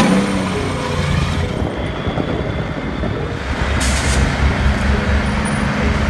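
Diesel semi-truck engine running steadily, with a short burst of air hiss about four seconds in.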